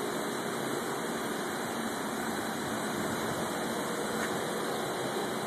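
Steady mechanical hum with an even hiss, unchanging in level.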